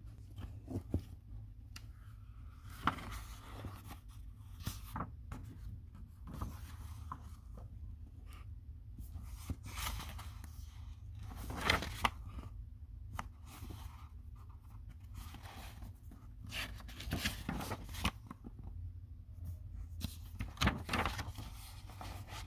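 Pages of a hardcover picture book being turned and handled by hand: a series of short paper rustles and swishes, irregularly spaced, some louder than others.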